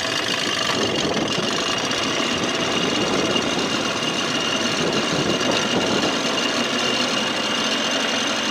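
1987 Johnson 6 hp two-stroke outboard running steadily under way, pushing the boat, fitted with a swapped-in carburettor meant to cure its bogging.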